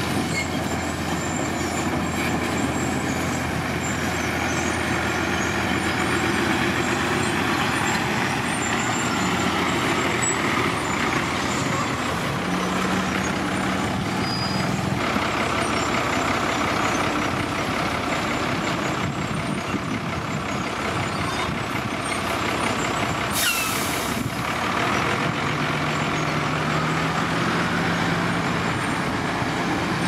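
Heavy diesel dump truck engines running steadily as a tipper with its bed raised unloads crushed stone, the engine note rising and falling a few times. About 23 seconds in, a brief loud hiss of air brakes.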